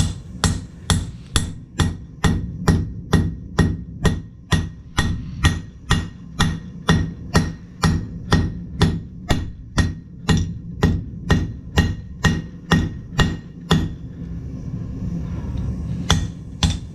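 Blacksmith's hammer striking hot steel on an anvil in an even rhythm of about two blows a second, forging the ball end of a drawn-out bar; the run stops about fourteen seconds in, and two more blows follow near the end.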